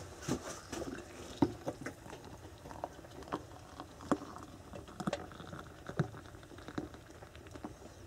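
Raindrops pattering in light rain, scattered irregular drips, with a few louder drops standing out.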